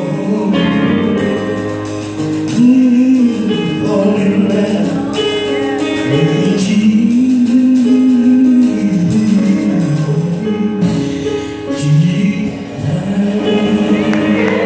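A woman singing a gospel song solo into a handheld microphone over instrumental backing music. She draws out long held notes that bend up and down.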